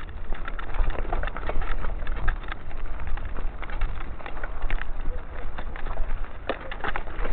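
Mountain bike rolling over a loose gravel track: tyres crunching and flicking stones in a steady patter of irregular clicks, the bike rattling over bumps, with a low wind rumble on the microphone.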